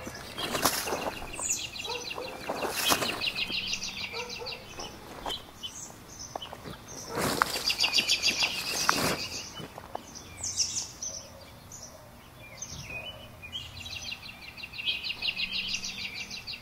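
Water thrown from a bucket splashing against a bivvy's freshly Fabsil-proofed fabric and running off: two short splashes in the first three seconds and a longer one from about seven to nine seconds in. A small bird sings rapid trills on and off throughout.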